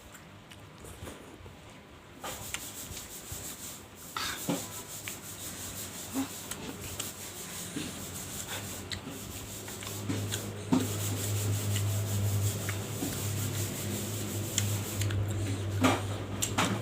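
Close-miked eating sounds: chewing with many small wet clicks and crackles. A steady low hum joins in about ten seconds in.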